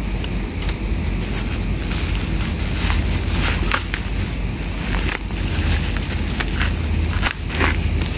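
Plastic packaging crinkling and crackling as hands work at a bundle wrapped in black bubble wrap and a thin plastic bag, with snips of kitchen scissors cutting through the wrap. Irregular sharp crackles over a steady low rumble.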